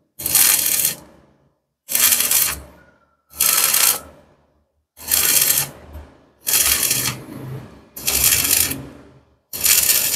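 Stick-welding arc on steel plate crackling in about seven short bursts, roughly one every one and a half seconds, with silence between: the arc is struck and broken again and again as the electrode works up a vertical joint.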